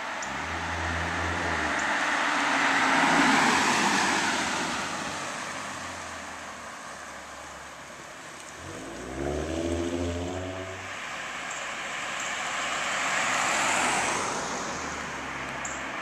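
Cars passing on a road, their tyre and road noise swelling and fading twice: loudest about three seconds in and again near fourteen seconds. About nine seconds in, a 2014 Ford Mustang's 3.7-litre V6 with a Roush axle-back exhaust accelerates away, its exhaust note rising in pitch for about two seconds.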